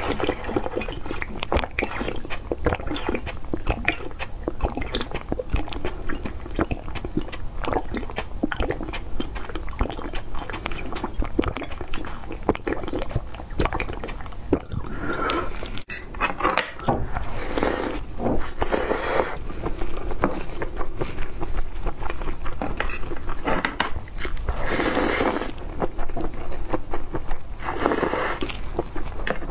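Close-miked mukbang eating and drinking sounds: sips and slurps from a glass, wet chewing, and small clicks of a fork on the food and tray. There are a few longer, louder slurps in the second half.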